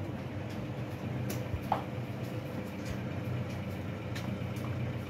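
Pickup truck engine idling steadily, with a few light clicks over it.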